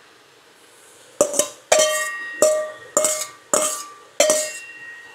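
Something metal rapped again and again against a cooking pan as diced peppers go in: six or seven sharp clanks, each ringing briefly like a bell, about one every half-second to second, beginning after a second of quiet.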